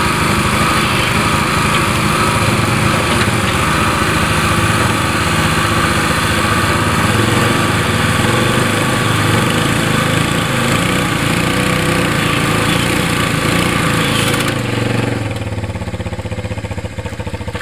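Small gas engine of an ATV front-end loader and its hydraulic power pack running steadily. About 15 seconds in the sound drops and thins, as though the engine eases off.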